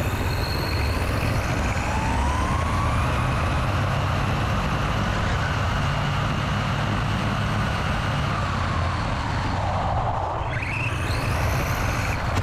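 A 3D-printed RC car's electric motor and geared drivetrain whining as it accelerates to about 40 mph, the whine rising in pitch over a steady rumble of wind and tyres on asphalt. The whine sinks towards the end, then rises again briefly.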